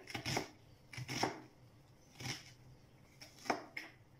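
Kitchen knife chopping a red onion into small cubes on a cutting board: about eight uneven knife strikes against the board, some in quick pairs and some a second or so apart.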